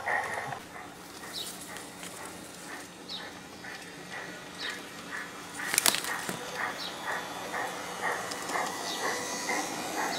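Piko G-scale garden railway train running over the track: a light rhythmic clicking about twice a second over a low hum, with one sharp louder clack about six seconds in.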